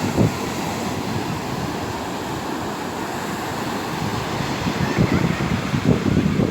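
Ocean surf washing on the beach, with wind gusting against the microphone in low buffeting rumbles, strongest just after the start and again near the end.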